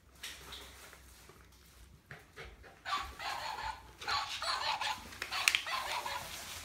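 A West Highland white terrier panting in short, irregular bursts as it chews and worries a toy. It is quiet for about the first three seconds, then gets busier and louder.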